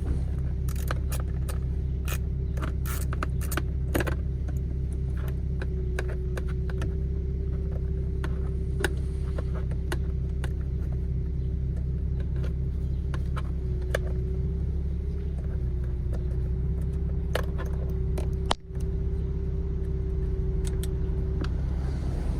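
Ratchet clicking in quick runs as it loosens a steering-wheel bolt, thickest in the first few seconds and scattered after, over a steady low hum.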